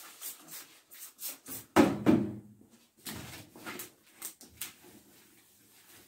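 A trigger spray bottle squirting and a microfibre cloth rubbing over a cardboard box, in short strokes, with one louder sharp sound about two seconds in.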